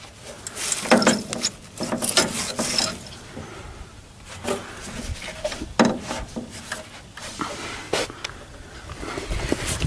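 A string of irregular knocks, clicks and scrapes from hands working around the stopped combine's header drive, with no engine running.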